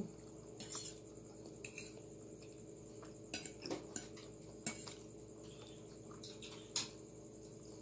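Metal fork clinking and scraping lightly against a plate while gathering spaghetti in cream sauce: a few scattered short clicks, about one every second or so.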